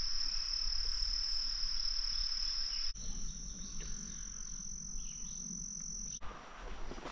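Summer insect chorus: a steady, high-pitched drone that steps up slightly in pitch about three seconds in and fades near the end.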